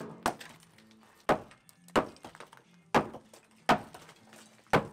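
Sledgehammer and club hammer blows smashing a low brick wall: six sharp strikes, unevenly spaced at about one a second.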